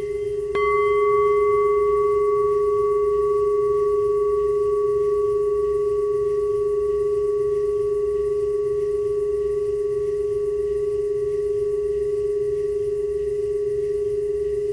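A steady, pure ringing tone held at one pitch, freshly struck about half a second in and then sustained with fainter higher overtones, over a low drone.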